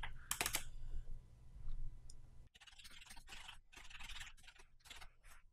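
Typing on a computer keyboard: a couple of key clicks about half a second in, then a quick run of faint key clicks in the second half.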